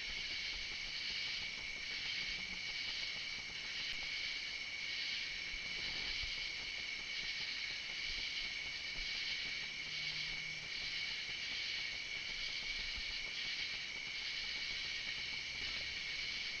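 Summer night insect chorus: a steady high trill with a pulsing, higher buzz layered over it.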